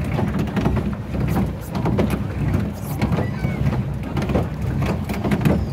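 Swan-shaped pedal boat being pedalled across the water: a steady low rumble with frequent knocks and clicks from the boat's drive and the water.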